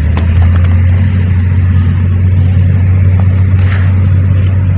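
Steady, loud low rumble that holds an even level throughout, with a few faint ticks over it.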